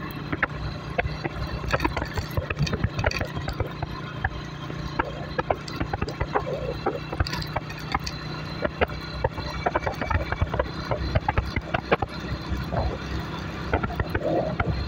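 Motorcycle engine running at a steady pace while riding, with frequent rattles and knocks from the rough road surface.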